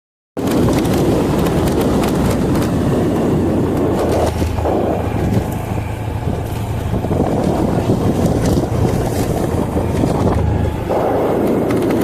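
Wind buffeting the microphone over the steady low hum of a moving vehicle, starting suddenly about half a second in.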